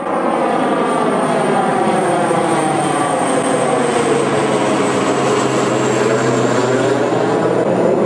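An aircraft flying over: a steady engine drone with a phasing whoosh that sweeps down in pitch and back up as it passes overhead, closest about halfway through.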